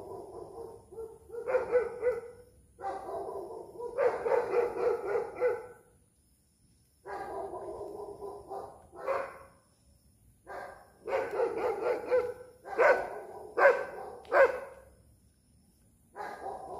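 Dogs barking and howling: drawn-out calls lasting a second or two each, then three sharp barks in quick succession near the end.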